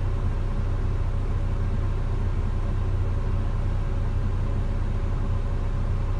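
JCB JS220 excavator's Dieselmax diesel engine idling with a steady low hum.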